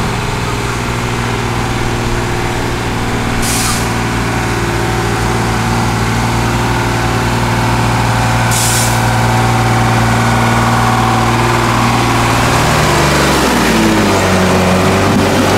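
6x6 Praga truck's engine running steadily under load as it crawls over rough ground, with two short hisses of air from the air brakes, one about three and a half seconds in and one just past halfway. Near the end the engine note drops and then rises again.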